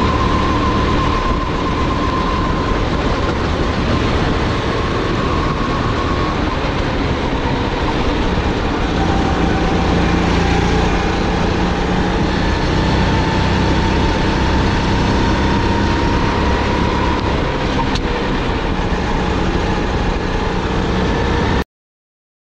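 SODI GT5R rental kart's 270 cc, 9 hp single-cylinder four-stroke engine running hard, heard onboard at racing speed, its note wavering slightly up and down with the throttle. The sound cuts off suddenly near the end.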